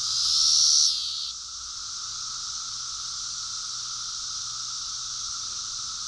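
Chorus of Brood X periodical cicadas: many males' mating songs merging into one steady hum, a high hissing drone with a lower steady tone beneath it. A louder buzz rides on top for about the first second, then cuts off.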